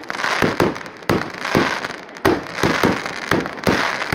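Fireworks display: a fast run of bangs from bursting shells, about two a second, with crackling and fizzing between the reports.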